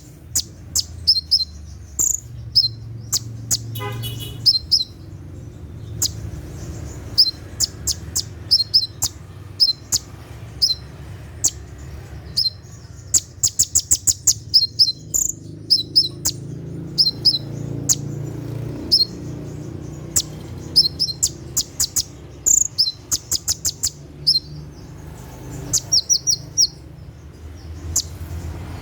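Kolibri ninja (brown-throated sunbird) giving sharp, high chirps in quick irregular bursts, with a few fast rattling runs of notes about halfway through and near the end, over a low steady hum.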